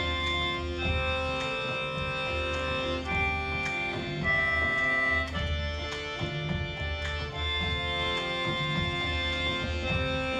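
Instrumental break of a folk song: held chords that change every second or so over a pulsing bass, with light rhythmic strokes.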